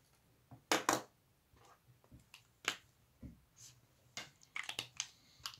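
Pens on a sheet of paper: a few short, sharp scratches and taps, the loudest pair about a second in and a quick cluster near the end, as a word is underlined with a pen.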